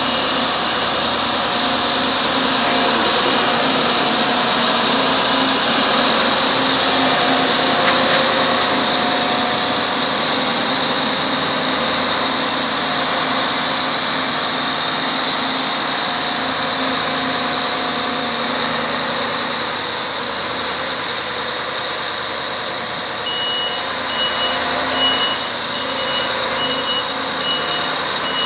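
Claas Lexion 760 combine harvester's diesel engine running steadily as the machine drives on its front tracks. About 23 seconds in, a reversing alarm starts beeping at an even pace.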